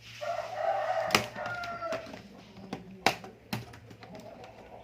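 A rooster crows once, a rough call of about two seconds, while a few sharp plastic clicks come from a laptop being pried open, one about a second in and two around three seconds in.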